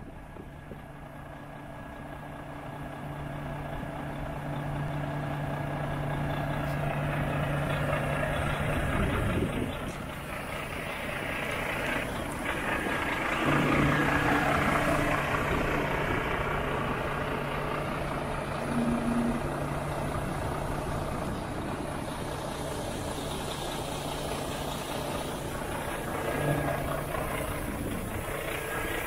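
Volvo FH4 500 tractor unit's 13-litre straight-six diesel idling steadily, getting louder over the first several seconds, with a rushing noise over it.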